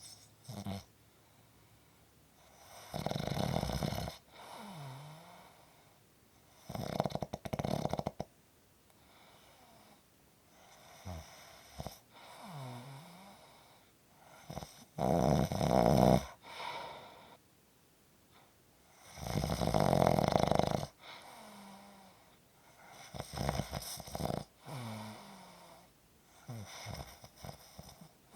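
A person snoring: loud snores every few seconds, with quieter breaths between. After several of the breaths comes a short low whine that dips and rises in pitch.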